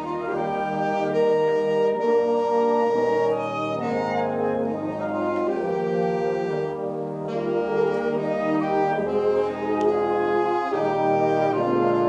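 High school wind ensemble (concert band) playing a slow piece in sustained chords that change every second or two, brass prominent over flutes and clarinets.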